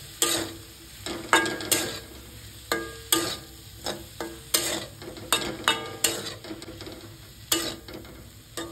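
Metal spatula stirring and tossing diced potatoes and spring onions in a kadai as they fry in oil. About a dozen irregular scrapes and clinks of the spatula against the pan ring briefly, over a low sizzle.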